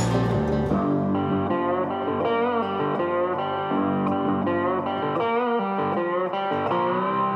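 Background music led by guitar, a plucked, melodic tune with some bending notes.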